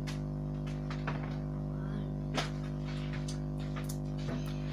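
Soft sticky clicks and smacks as a lump of fluffy slime is pressed onto a worktop and pulled off to pick up debris, three or so in a few seconds, over a steady electrical-sounding hum.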